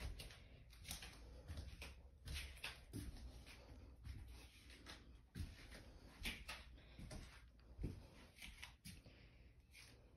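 Faint, irregular rustles and soft knocks in a small room: handling noise and movement from someone carrying a hand-held phone while walking.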